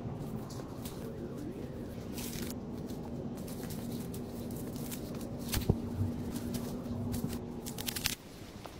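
Thick moss being torn off a rotting log and handled: a crackling, rustling tear with a few sharp snaps. A faint steady low hum runs underneath and stops about eight seconds in.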